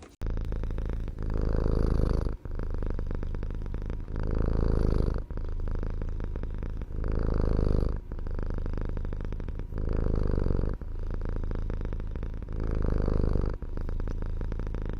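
A cat purring loudly and continuously close to the microphone, the purr swelling louder about every three seconds.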